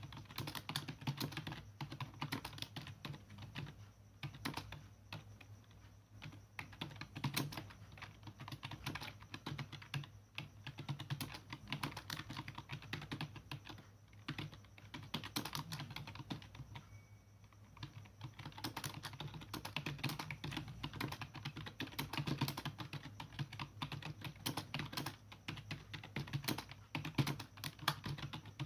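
Continuous fast typing on a computer keyboard at about 50 words a minute: an uneven stream of key clicks, with a short pause about seventeen seconds in.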